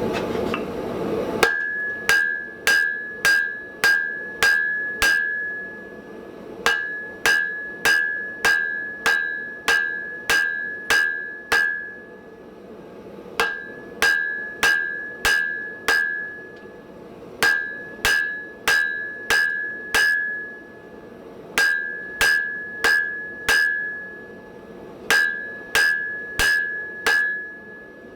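Hand hammer striking hot steel on an anvil while drawing down a hardy tool, about two blows a second in runs of five to nine with short pauses between runs. Each blow is followed by a bright ringing from the anvil. A short rushing noise comes before the first blow.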